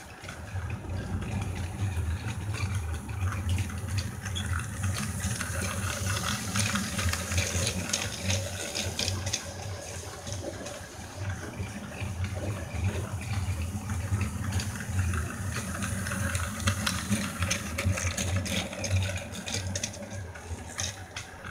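Battery-powered Plarail-style toy freight train running on plastic track: a steady motor whir with wheels rattling over the track joints, swelling and fading as the train circles the loop.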